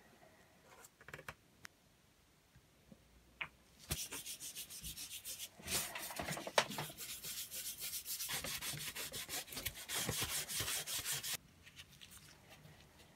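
Metal pump barrel being scrubbed by hand with an abrasive cleaning paste. A few light clicks of handling come first; about four seconds in, rapid back-and-forth scouring strokes start, go on for about seven seconds, then stop.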